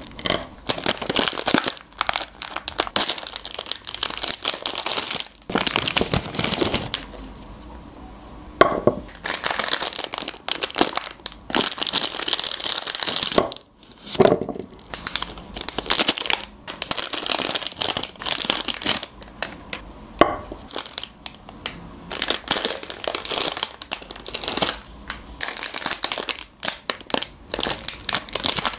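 Crinkling and tearing of foil-lined Magnum ice cream wrappers being peeled open one after another, with fingernails tapping and scratching on a foil-covered tray. There is a short quieter stretch about seven seconds in.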